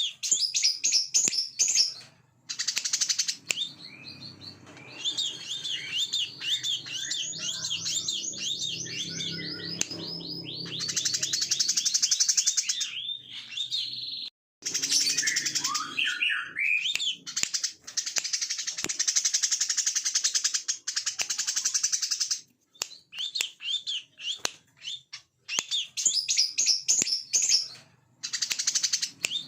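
Brown-throated sunbird singing a fast, shrill song. Runs of quick, high chirps alternate with long, dense buzzing trills: the continuous 'ngebren' delivery.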